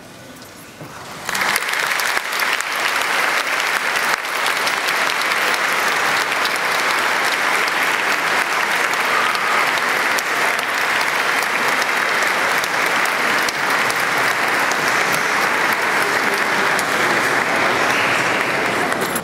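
Large audience applauding steadily, starting suddenly about a second in.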